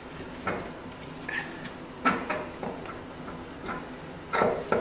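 A few light, separate knocks and clinks of metal parts and tools as the driveshaft is worked out of the wheel hub, the loudest near the end.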